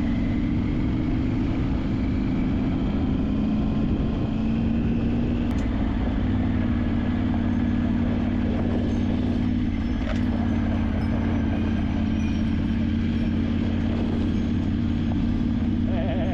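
Off-road vehicle engine running steadily while driving, with a continuous low hum over the noise of the ride.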